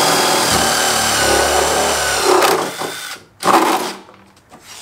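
Cordless drill boring a hole through the thick plastic wall of a rain barrel: the motor runs steadily, with a heavier grinding stretch while the bit cuts through, and stops about three seconds in. A short knock follows about half a second later.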